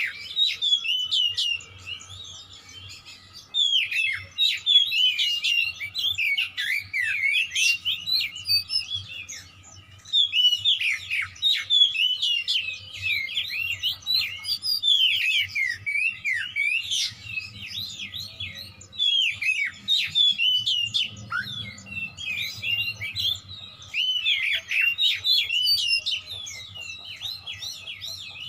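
Oriental magpie-robin (kacer) singing in an aggressive, fighting mood: long runs of rapid, varied chirps and whistles, broken by short pauses between phrases.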